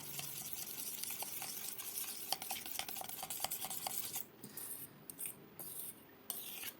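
Metal spatula stirring and scraping in a cooking pan, with quick clinks against the metal and a faint sizzle underneath. The clinks thin out and it goes quieter about two-thirds of the way through.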